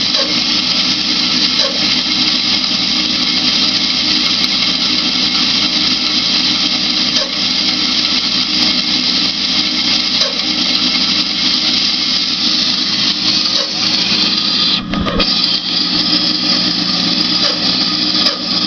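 New Grizzly G0513X2B bandsaw running steadily: a constant motor hum with several steady tones over it, the strange noise the owner hears from this saw. Its motor is overheating, running very hot.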